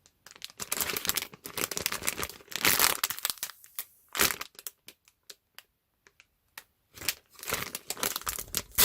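Crinkly plastic packaging being handled and opened, in irregular crackling bursts, with a pause of about two seconds after the middle before the crinkling starts again.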